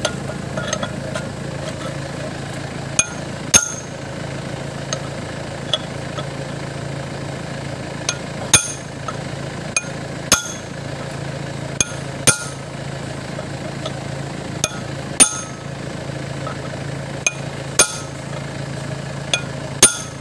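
Metal-on-metal strikes on a punch held against a truck's front wheel hub, driven to loosen the spindle hardware for a bearing change. About fifteen sharp clinks at uneven intervals, often in quick pairs, each with a brief high ring, over a steady low hum.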